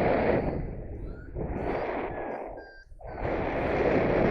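Wind buffeting the microphone in gusts, dropping away briefly about two and a half seconds in before surging back.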